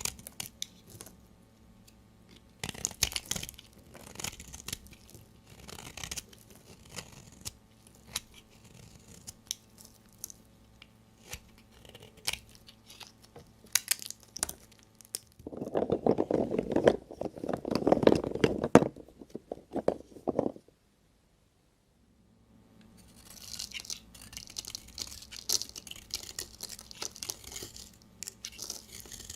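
A blade cutting through bars of soap with a run of crisp crunching cuts and scrapes. Midway there is a longer stretch of denser, deeper crunching, then a sudden gap of dead silence, then steady hissy scraping.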